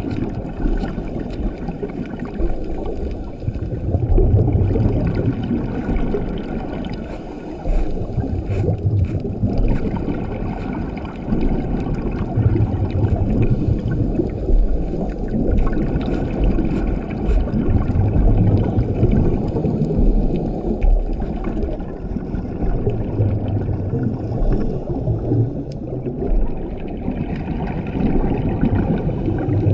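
A scuba diver's regulator breathing underwater. Rumbling bursts of exhaled bubbles recur about every five to six seconds over a steady muffled underwater wash.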